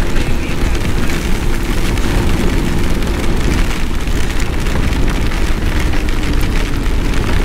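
Hard rain pelting the camera on a moving motorcycle, with a steady rumble of wind underneath.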